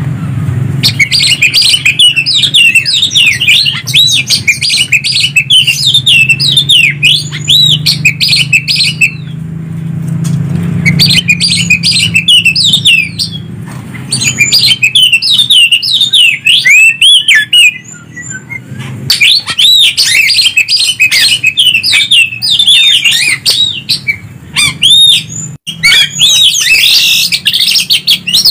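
Greater green leafbird (cucak ijo) and oriental magpie-robin (kacer) singing back and forth: long runs of fast, sweeping whistled and chattering notes, broken by short pauses a few times. A low hum runs under the first half.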